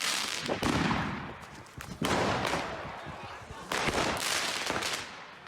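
Fireworks exploding: three loud bangs, the second about two seconds after the first and the third a second and a half later, each fading away over a second or so.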